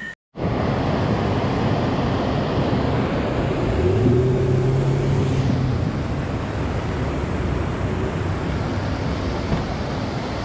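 Motorboat under way on a river: a steady engine note under a dense rush of water and wind noise. The engine note stands out more clearly for a couple of seconds in the middle.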